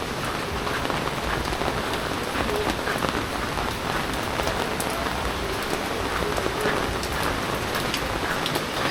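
Heavy typhoon rain falling steadily, with many individual drops pattering on nearby surfaces.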